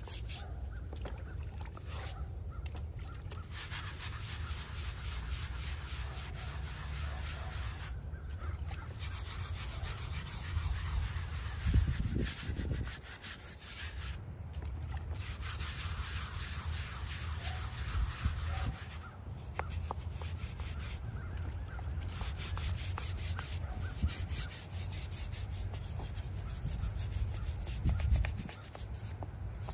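Brush scrubbing a small stone headstone with rapid back-and-forth strokes, stopping briefly a few times.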